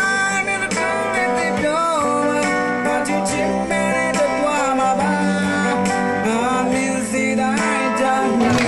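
A man singing a song into a microphone over guitar accompaniment.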